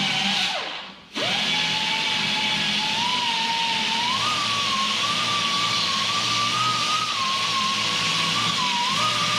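Air die grinder whining as it grinds a ridge off a tractor steering knuckle. About half a second in the trigger is let go and the whine sinks away. It starts again at about a second, and its pitch climbs and wavers as the burr bears on the metal.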